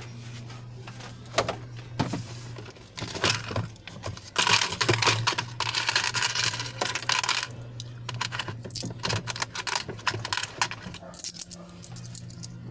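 Loose coins clicking and clinking on a shop counter as change is counted out in one-peso coins, with a dense rattle of coins for about three seconds near the middle, over a steady low hum.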